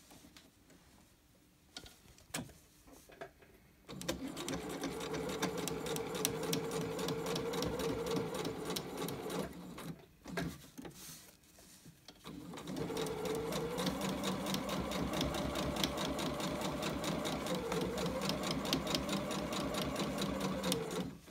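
Pfaff sewing machine top-stitching along the edge of layered fabric, the needle running fast and even. It starts about four seconds in after a few light clicks, stops for about two seconds near the middle, then runs on again.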